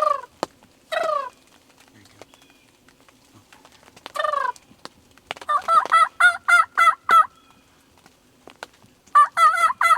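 Wild turkeys calling close by: single calls that fall in pitch, then a quick run of about seven notes a little past halfway and another run of about five near the end.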